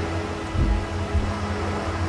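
Soft background music with long held notes over the wash of small waves breaking on rocks. A low thump comes about half a second in.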